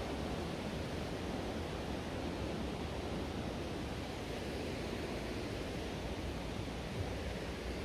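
A river rushing over rapids, a steady, even noise with one brief tap near the end.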